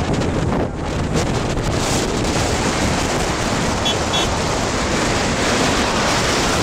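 Wind rushing over the microphone of a camera on a moving BMW R1200GS motorcycle, with the bike's boxer-twin engine running underneath. Two short high beeps about four seconds in.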